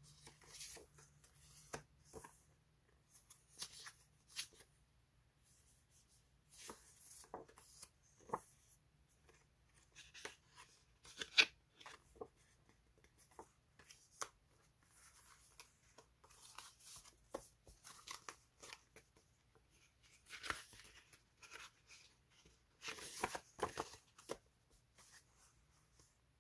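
Sheets of paper label stickers being handled, flipped through and laid down on each other: soft, irregular paper rustles and crinkles with light taps, a few louder crinkles among them.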